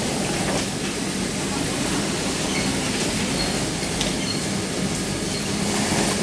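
Juki industrial sewing machines running together, a steady mechanical whirr with a low hum underneath.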